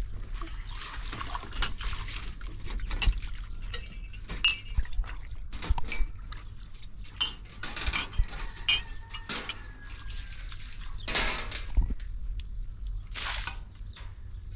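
Household dishes and utensils clinking and knocking irregularly, with liquid splashing and a few longer swishing sounds.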